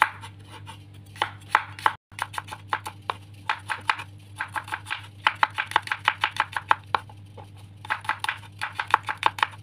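Knife slicing garlic cloves on a cutting board: quick runs of short chopping strokes, about five or six a second, in bursts with brief pauses.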